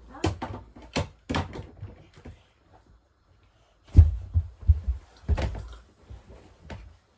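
Scattered knocks, clicks and thuds, about six in all with the heaviest one about four seconds in, from the parts of a children's play tent being handled on the floor.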